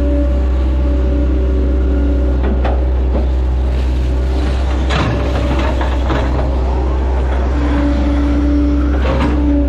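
Hitachi Zaxis 110 excavator's diesel engine running under load, heard from the cab, with a hydraulic whine that comes and goes as the boom swings and the bucket digs. Three short clunks: about a quarter in, halfway, and near the end.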